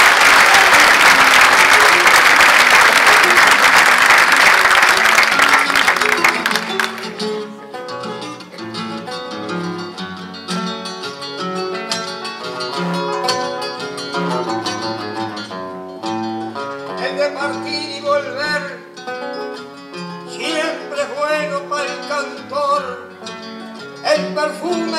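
Audience applauding for about the first seven seconds, then acoustic guitars playing an instrumental interlude of plucked notes.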